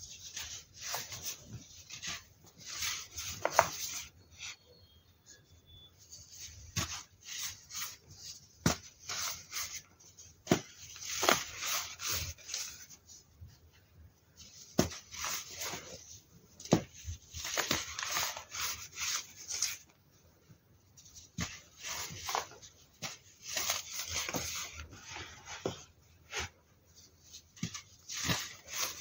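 Hands crushing pressed baking soda blocks into loose powder: dry crunching and crumbling in bursts, with sharp snaps as pieces break.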